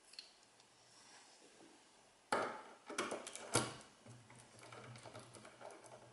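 Handling noise from a tubular lock impressioning tool: a sudden clatter about two seconds in, then a run of small clicks ending in a sharp click. After that comes a low steady buzz.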